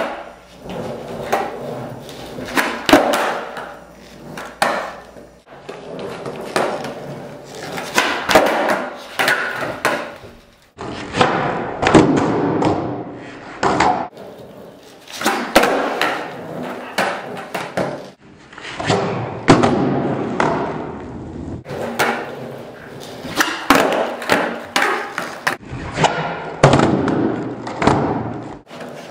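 Skateboard on a bare concrete garage floor: tail pops and the board's hard clacking landings during tre flips, again and again, with wheels rolling on the concrete between them.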